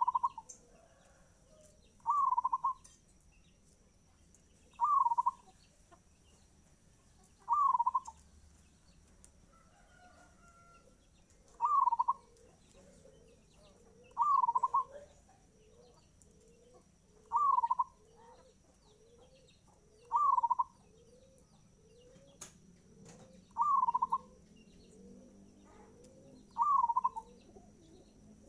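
Zebra dove (perkutut) singing its short cooing phrase in fast tempo, repeated about ten times at roughly three-second intervals.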